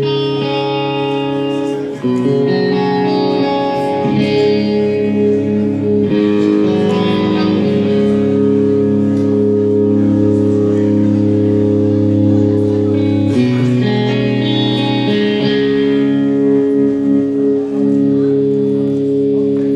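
Electric guitar through an amplifier playing slow, held chords that ring on and change every few seconds, a solo intro with no drums or bass.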